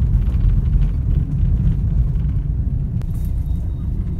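Steady low rumble of a car on the move, heard from inside the cabin: engine and tyre noise.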